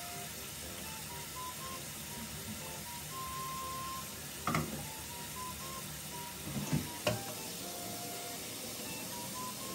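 Dishes clinking in a kitchen sink a few times about halfway through, as they are washed by hand, over a steady hiss and light background music of short, simple notes.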